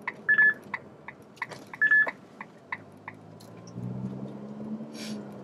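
Turn-signal indicator ticking about three times a second in the Ferrari Roma's cabin, stopping about halfway through, with two short loud electronic beeps. In the second half the car's twin-turbo V8 comes up, its note rising slightly.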